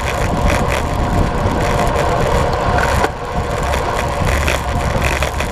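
Wind rushing over a bicycle-mounted camera's microphone, with road-bike tyres humming on asphalt at about 50 km/h. The noise is steady, with a brief abrupt dip about three seconds in.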